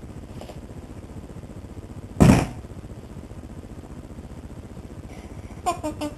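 Snoring: a low, rapidly pulsing rumble, with one short, loud snort about two seconds in. High squeaky sounds come in near the end.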